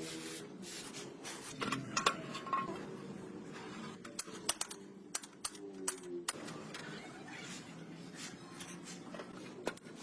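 Scattered sharp clicks and light knocks over a faint steady background, with a brief pitched squeak or whine about five and a half seconds in.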